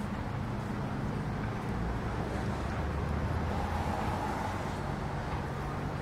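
Street traffic ambience: a steady low engine hum from nearby motor vehicles over a general city noise bed, swelling a little around the middle.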